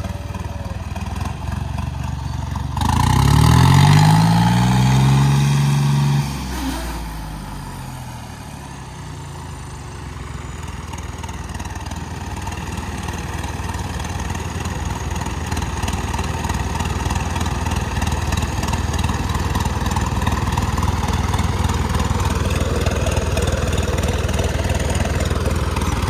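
Diesel engines of a John Deere tractor and a Ford 3600 tractor running hard under load in a tug-of-war, chained back to back. About three seconds in, an engine revs up sharply and stays loud for about three seconds, then drops back, and the labouring engine noise builds again steadily toward the end.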